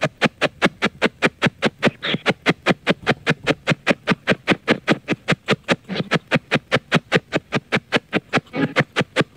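A spirit box sweeping through radio stations and played through a portable speaker. It gives a rapid, even chopping of split-second radio fragments, static and snatches of broadcast music and voices, about six a second.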